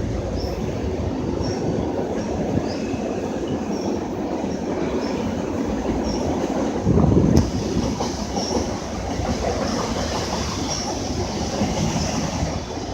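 A train rolling past on the rails: a steady rumble of wheels and cars with short high squeaks about once a second. A louder burst ending in a sharp click comes about seven seconds in.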